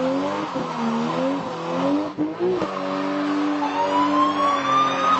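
Car engine revving, its pitch rising and falling repeatedly. Near the end a siren starts up with a steady rising tone.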